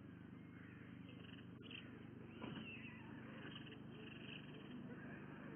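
Faint steady low hum from a stork-nest webcam's microphone, with light scattered rustling, a single sharp click about a second and a half in and a brief scrape a second later.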